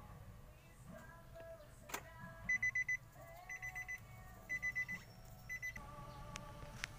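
Car's electronic warning chime beeping in quick groups of four, about one group a second, starting about two and a half seconds in, with a click just before it.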